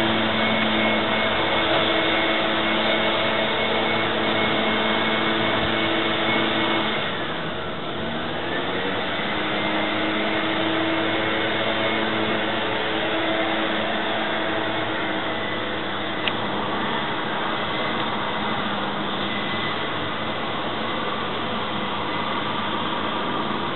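A machine running steadily: a loud whir with a hum on several steady tones. About eight seconds in, the pitch briefly sags and then climbs back, as a motor does when it slows and picks up again.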